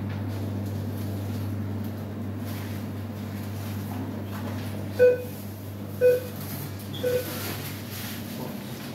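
Three short electronic beeps about a second apart, over a steady low equipment hum.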